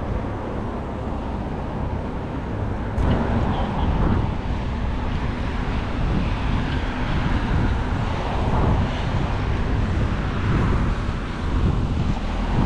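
City street traffic: a steady rush of passing cars, louder from about three seconds in.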